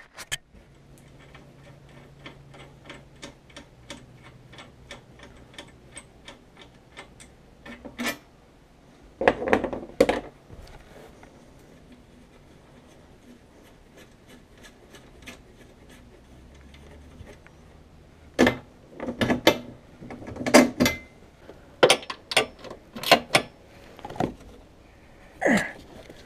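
Socket ratchet wrench clicking at a steady pace of about four clicks a second as bolts are loosened. After that come sharp metallic knocks and clanks of tools and parts being handled, loudest in a cluster near the end.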